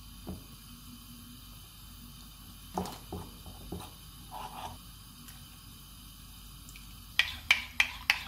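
Metal spoon stirring flour and water into a thin batter in a ceramic bowl. A few scattered taps and scrapes come a few seconds in, then a quick run of sharp clinks against the bowl near the end.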